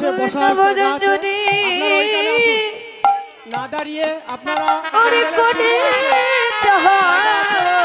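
Kirtan devotional music: a sustained, wavering melody over drum strokes and sharp percussion hits, with a short lull about three seconds in.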